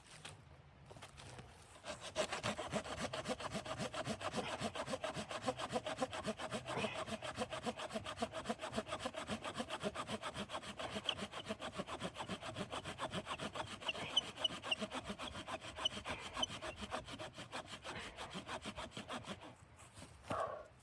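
Hand saw cutting wood in quick, steady back-and-forth strokes. It starts about two seconds in and stops shortly before the end.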